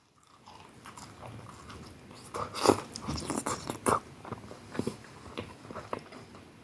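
A person biting and chewing pizza close to the microphone: a run of louder crunchy bites about two to four seconds in, then lighter chewing.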